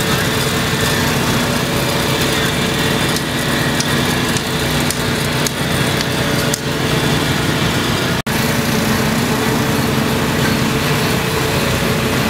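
Web-fed printing press running at speed: a steady mechanical din of rollers and paper web with a few steady hums. It cuts out for an instant about eight seconds in.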